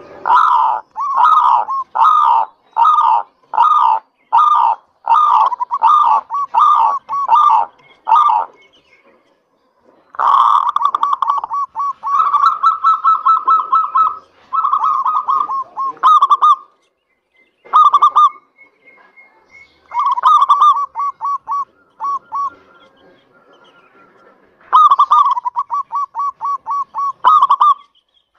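Zebra dove (perkutut) cooing: a regular series of about a dozen staccato coos over the first eight seconds, then several faster rolling trills of coos broken by short pauses.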